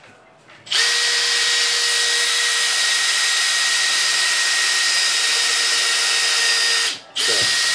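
Electric power tool motor running at a steady pitch for about six seconds. It stops briefly, then runs again in a short burst.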